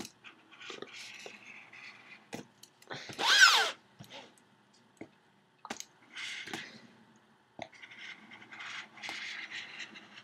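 Packaging on a keyboard box being cut open: scraping and rustling strokes, with scattered clicks. About three seconds in comes a loud, brief squeal that falls in pitch.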